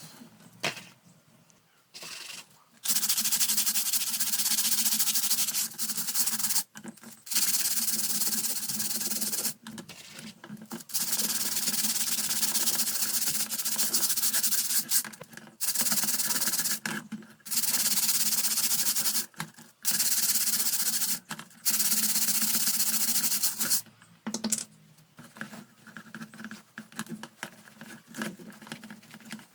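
Scrubbing while cleaning a fan: a series of long, hissy rubbing strokes, each lasting one to several seconds with short pauses between, giving way to lighter scratching and rubbing near the end.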